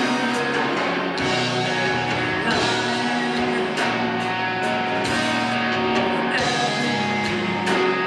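A live emo rock band playing: distorted electric guitars, bass guitar and a drum kit, with a male singer's vocals coming and going over them.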